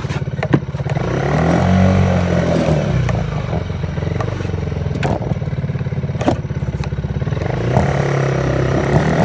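Off-road vehicle's engine running, revving up and easing off about two seconds in and again near the end. A few sharp knocks and rattles sound over it.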